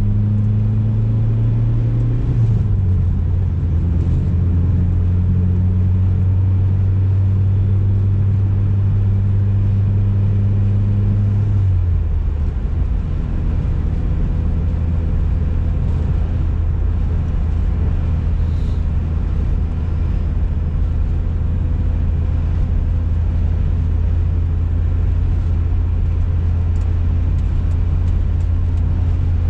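1990 BMW E30 M3's S14 four-cylinder engine pulling the car along at a steady cruise, heard from inside the cabin with road noise. The engine note steps down in pitch a couple of seconds in and again about twelve seconds in.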